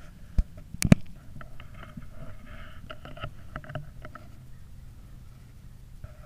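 A .17 HM2 rimfire rifle fires once, a sharp crack about a second in, just after a fainter click. Faint scattered clicks and rustling follow.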